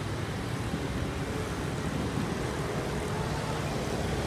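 Steady road and engine noise of a moving vehicle, heard from inside the cabin.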